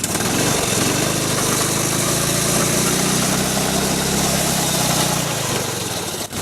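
Snowmobile engine running, its tone rising a little partway through and easing off about five seconds in.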